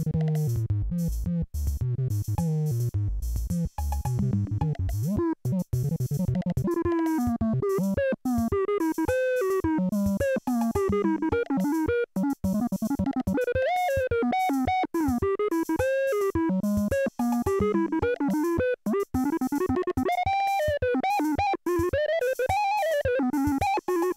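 Polivoks analogue synthesizer playing, freshly repaired: low bass notes for the first few seconds, then a higher melodic line whose pitch wavers and glides between notes.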